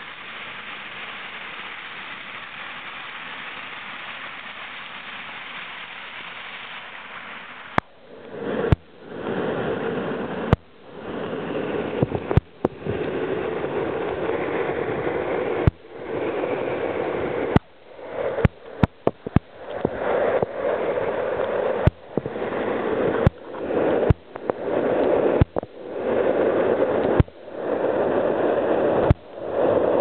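Close-up rush of a waterfall's water pouring down the rock, steady at first. From about eight seconds in it is broken again and again by sharp clicks, each followed by a brief dropout as the sound swells back.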